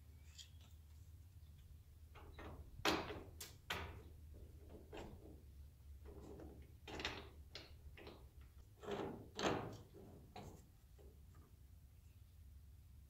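Hand socket wrench ratcheting as bolts on a steel wall-mount bracket are tightened: a string of short, irregularly spaced ratchet rasps and metal clicks, loudest about three seconds in and again about nine and a half seconds in.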